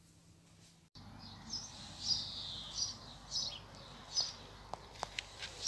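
Bird chirping: short high notes repeated about every two-thirds of a second over faint outdoor background, starting about a second in after near silence.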